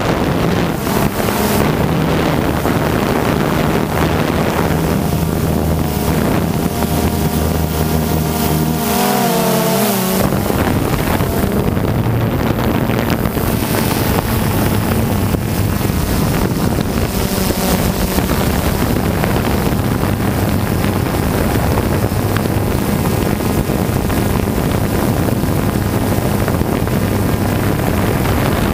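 A camera drone's motors and propellers whining steadily, with wind rushing over its microphone; the pitch of the whine glides down and changes about ten seconds in.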